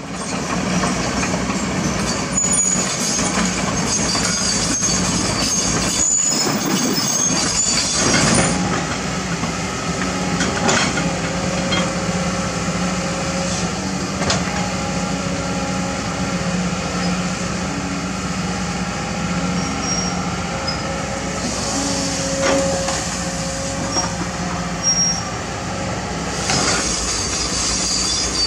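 Kobelco SK200 hydraulic excavator running steadily under load while digging, with high metallic squeals and a few sharp clanks from its tracks and bucket.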